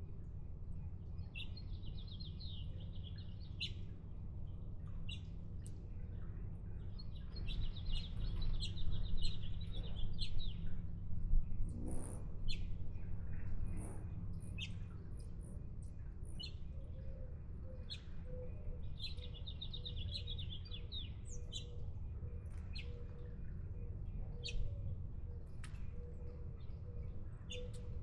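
Small songbirds chirping, with three quick twittering song phrases of one to three seconds each and scattered single chirps between them. A steady low rumble runs underneath.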